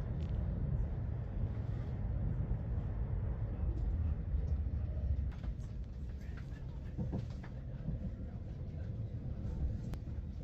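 Passenger train running at speed, a steady low rumble of wheels and carriage heard from inside the coach, with a few faint clicks and knocks.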